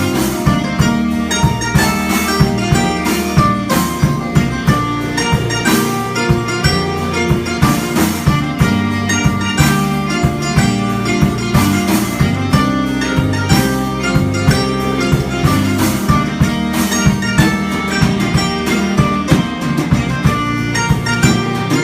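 Live band playing an instrumental passage of a bluegrass-style song: plucked guitar over drums keeping a steady beat.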